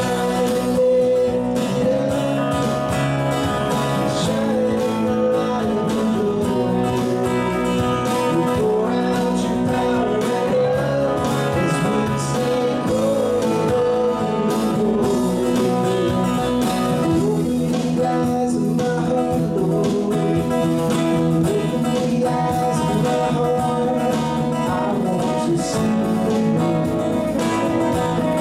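A live band playing a song: a man singing lead over strummed acoustic guitar, electric guitar, electric bass and drums.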